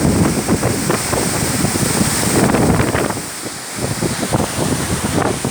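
Waterfall water rushing, mixed with wind buffeting the microphone.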